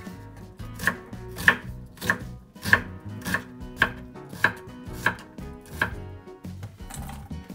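Chef's knife chopping onion on a wooden cutting board: about nine even knife strikes, roughly one every 0.6 seconds, stopping near the end.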